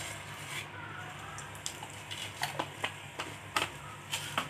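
Panch phoron (five-spice seeds) sizzling in hot oil in a karahi, with scattered sharp pops and crackles as the seeds spit.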